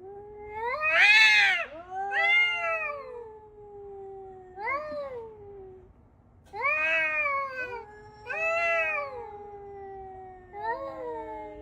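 Domestic cat yowling: a series of about six long, drawn-out meows that rise and fall in pitch, the loudest about a second in and one stretching over about four seconds.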